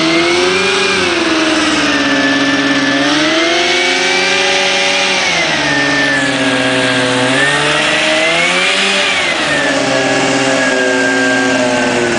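Small recreational hovercraft's engine and rear ducted fan running loud, the pitch climbing and falling back three times as the throttle is worked while it is driven from the water up onto a hard ramp.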